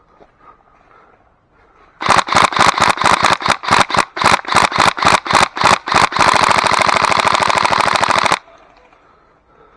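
Airsoft gun firing close by: about twenty single shots in quick succession, roughly five a second, then a continuous full-auto burst of about two seconds that stops suddenly.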